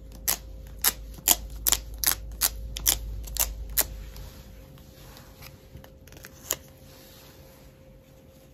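A round dust-absorber sticker dabbed repeatedly on an iPhone's glass screen, giving sharp clicks about two a second. The clicks stop about halfway through, with one more later.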